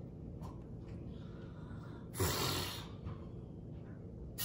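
A short hissing burst of aerosol baking spray (the flour-and-shortening kind) coating a metal tube pan, about two seconds in.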